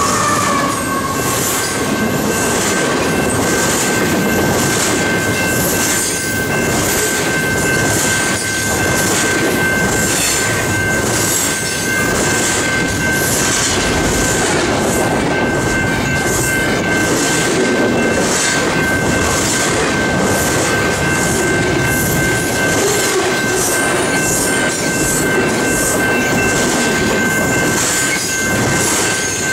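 Double-stack intermodal freight cars rolling past close by: a steady loud rumble and clatter of steel wheels on rail, with a faint regular rhythm as the wheels pass and a steady high-pitched tone running through it.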